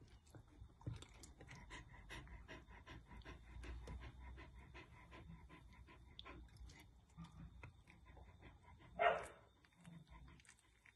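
An eight-day-old Irish Terrier puppy breathing quickly, with faint snuffles and small mouthing clicks. One louder, short snuffle comes about nine seconds in.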